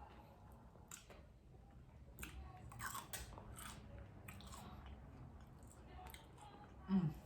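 Close-miked chewing and biting of a pizza puff cheeseburger, with scattered crunches and wet mouth clicks. A brief hummed 'mm' comes from the eater near the end.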